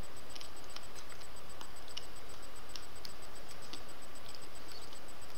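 Faint, irregular small wet clicks of a mouth eating a hard-candy scorpion lollipop, about a dozen over a steady hiss.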